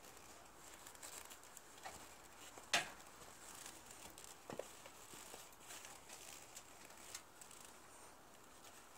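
Hand crank of a steel hitch-mounted motorcycle carrier being turned to raise the cradle with a motorcycle on it: faint, irregular clicks, with a sharper click about three seconds in and another about a second and a half later.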